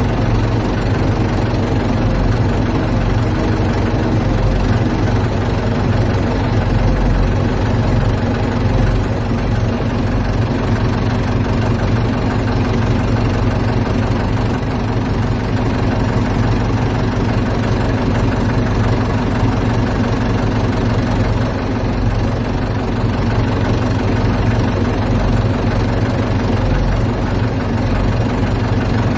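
Ford 755 backhoe's engine running steadily at a low idle.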